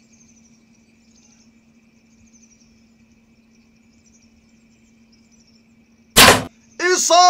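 Faint night insect chirping over a low steady hum, then about six seconds in a sudden loud, sharp crack as the arrow is shot into the greater kudu. A loud voice-like sound with falling pitch follows near the end.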